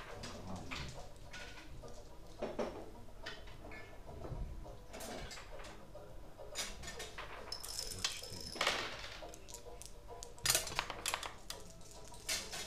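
Backgammon checkers and dice clacking on the board: scattered light clicks and clatters, with the loudest cluster of sharp clicks about ten and a half seconds in.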